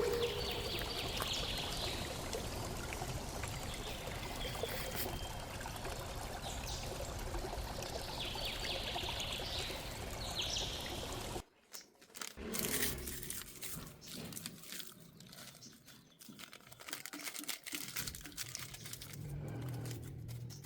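Water pouring and trickling steadily. About halfway through it cuts off abruptly, giving way to quieter irregular rustles and taps.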